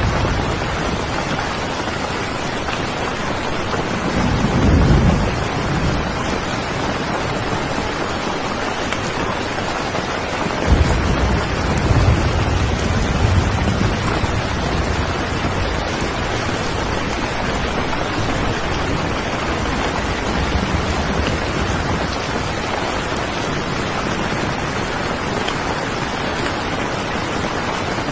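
Steady rain, with low rolls of thunder rumbling about four seconds in and again from about eleven seconds in.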